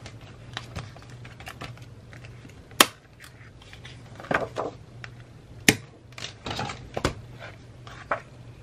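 Metal rings of a ring-binder planner clicking: three sharp snaps, with paper pages rustling as they are turned and pulled free of the rings.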